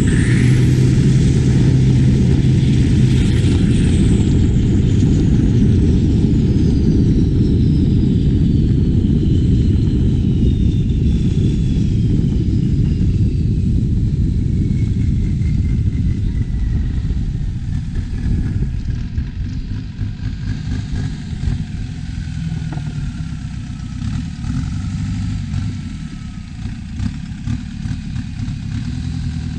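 Turbocharged diesel engine of a Thai long-tail racing boat running under way, a loud low drone with a thin high whistle that glides slowly down in pitch. The engine eases off and gets quieter about two-thirds of the way through.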